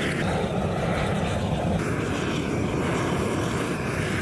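Hand-held gas blowtorch burning steadily, its flame played against a charred cow hide.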